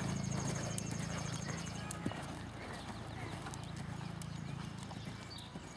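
Hoofbeats of a bay horse trotting under a rider on dirt arena footing, with a steady low hum underneath that fades about two seconds in and comes back later.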